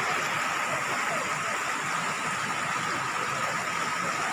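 Steady rushing of water flowing over a rocky stream bed at a waterfall, with a thin, steady high tone alongside.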